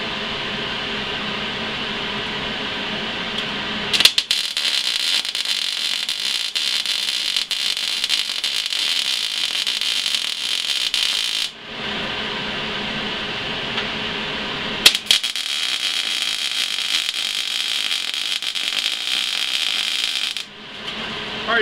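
Eastwood MIG250 MIG welder laying two stitch-weld runs on square tubing: the arc crackles steadily for several seconds from about four seconds in, stops, then strikes again for a second run a few seconds later. A low steady hum sits under the quiet stretches before and between the runs.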